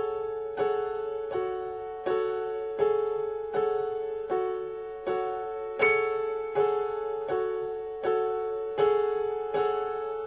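Instrumental background music on a keyboard: a slow, even pulse of repeated notes or chords, about one stroke every three-quarters of a second, each dying away before the next.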